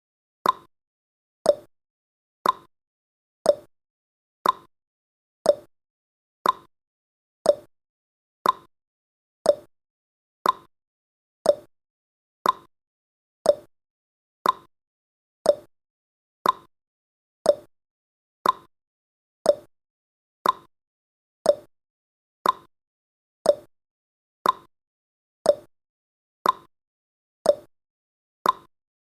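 Countdown timer sound effect: a short click once every second, evenly spaced, with nothing in between.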